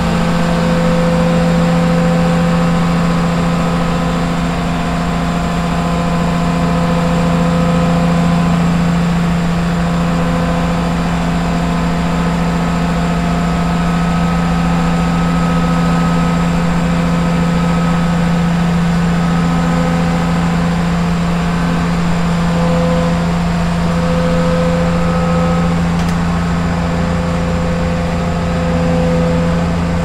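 Case IH 2388 combine's diesel engine running steadily as the machine moves slowly: a steady low drone with fainter higher tones that come and go.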